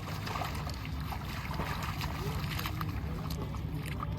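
Steady low rumble of wind on the microphone, with faint distant voices in the middle.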